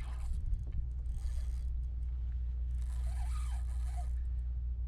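Fishing reel working with the fish on, its gears whirring and clicking in two stretches over a steady low rumble.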